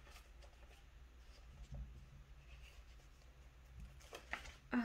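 Quiet room tone with a low steady hum and a few faint rustles and soft taps of paper being handled, one slightly louder tap about four seconds in.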